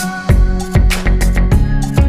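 Background music with a steady beat, bass and plucked guitar.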